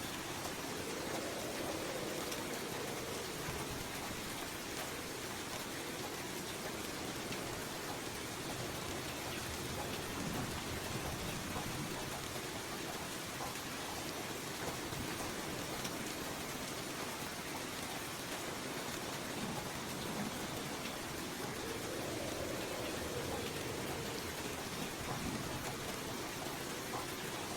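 Steady rain falling, an even, dense patter of drops.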